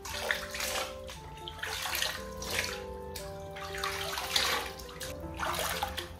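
Water scooped up in cupped hands and poured over a chicken sitting in a plastic basin of water, splashing and trickling in about five uneven surges. Background music plays steady held notes throughout.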